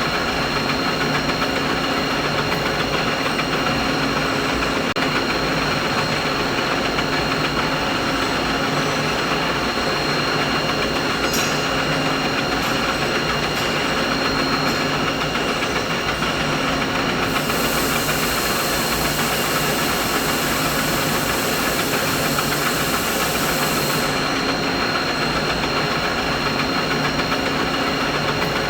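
Steady, unchanging machinery drone, a mid-pitched mechanical noise with several held tones in it, including a thin high whine. A higher hiss joins it about two-thirds of the way through and drops out again a few seconds later.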